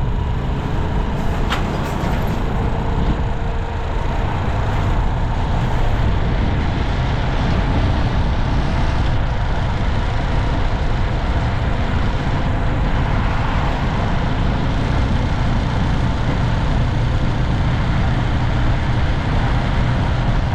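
Heavy vehicle or machine engine running steadily: an even low rumble with a constant hiss.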